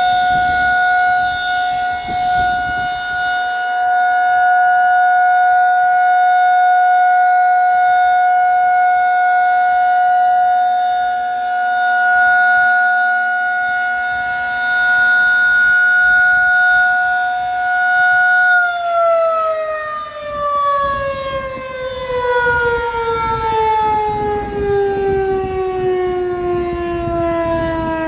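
Federal Signal 2001-SRN outdoor warning siren sounding the steady tone of a one-minute alert, its loudness swelling and dipping slightly, then cutting power about two-thirds in and winding down with a steadily falling pitch. Wind rumbles on the microphone during the wind-down.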